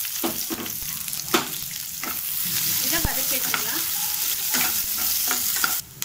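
Sliced onions, green and dried red chillies and garlic sizzling in hot oil in a nonstick kadai, with a steel spatula scraping and tapping the pan as they are stirred. The sizzling cuts off suddenly near the end.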